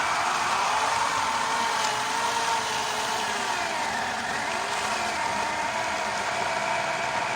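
Corded 12-amp electric chainsaw with an 18-inch bar and chain running and cutting through hard pecan wood. The motor's pitch wavers, dipping and recovering every second or so as the chain bites.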